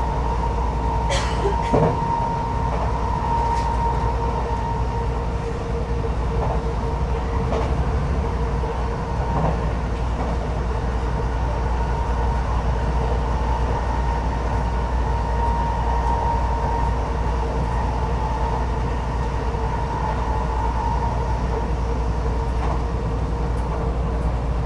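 Passenger train running steadily, heard from on board: a constant low rumble with a steady whine over it, and a couple of sharp clicks about a second in.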